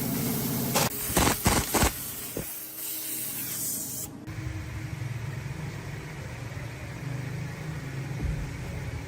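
A spray-like hiss with a few sharp knocks in the first two seconds; the hiss cuts off suddenly about four seconds in, leaving a low steady hum.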